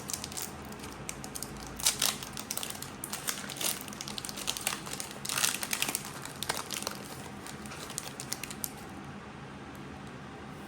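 Foil wrapper of a Pokémon TCG booster pack crinkling and crackling as it is handled and opened, in dense bursts of sharp crackles that thin out near the end.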